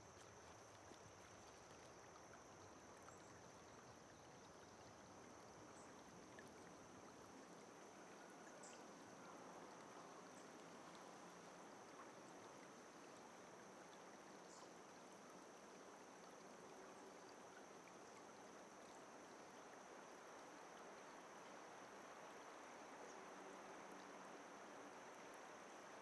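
Faint, steady rush of flowing water, growing slightly louder toward the end, with a thin, steady high tone above it.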